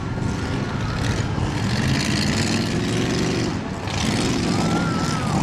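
Demolition derby cars' engines running and revving up and down, with overlapping engine noise.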